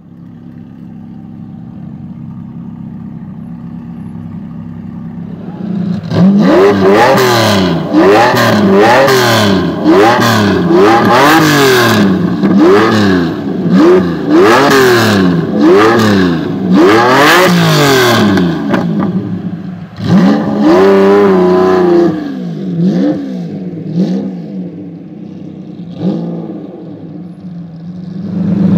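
Lamborghini Diablo GT's 6.0-litre V12 engine, first running steadily at low revs, then revved hard in quick repeated blips about one a second from about six seconds in. A longer rev follows around twenty seconds, then it settles near idle with a couple of short blips.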